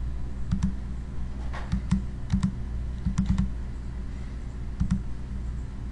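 Scattered sharp clicks of a computer mouse and keyboard, several coming in quick pairs or short runs, over a steady low hum.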